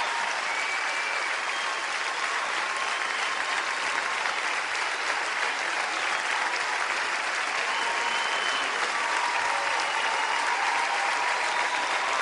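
Concert audience applauding steadily at the end of a song.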